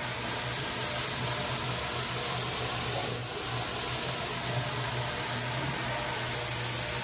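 Rotary floor machine scrubbing a wet, soapy area rug. It runs steadily: a constant low motor hum under an even wet hiss from the brush working the rug.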